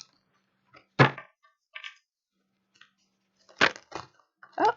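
A deck of tarot cards being shuffled and handled, with cards falling out. Two loud sharp snaps, about a second in and past three and a half seconds, with light clicks between.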